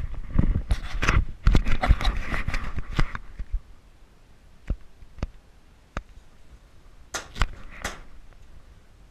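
Airsoft pistol shots: a rapid string of sharp cracks over the first three seconds or so, then a few single shots spaced out toward the end.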